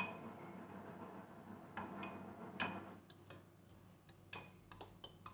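A spoon stirring mint leaves with olive oil and lemon juice in a glass bowl: faint, scattered clinks and taps of the spoon against the glass, about eight in five seconds.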